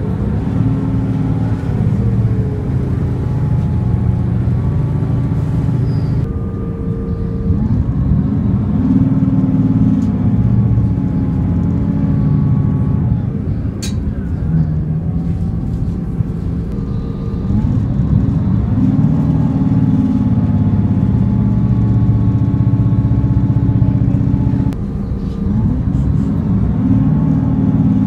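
Diesel multiple unit's underfloor engine heard from inside the passenger saloon, working hard under power. Its pitch rises, holds steady, then steps down several times as the train accelerates.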